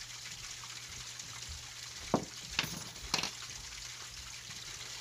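Three short clicks in quick succession around the middle, over a steady low hum: small metal and plastic parts of a Traxxas X-Maxx 8S rear differential knocking as the center section is pushed out of the ring gear and set down.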